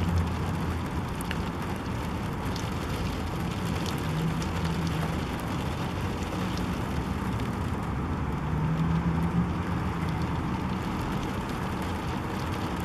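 Steady city background noise: a low hum of traffic with light rain falling.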